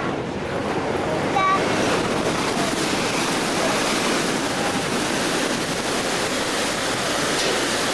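Steady rush of the SS Badger's churning propeller wake below the stern, mixed with wind on the microphone. It comes in about a second and a half in, after a brief voice.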